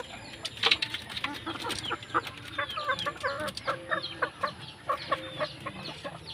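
A flock of white broiler chickens clucking: many short calls overlap throughout.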